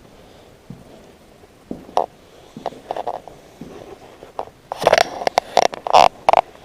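Footsteps on a gritty floor, then a cluster of loud crunching and knocking sounds about five to six seconds in.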